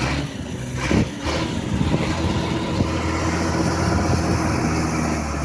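A heavy vehicle's engine running steadily, with two sharp knocks about a second in.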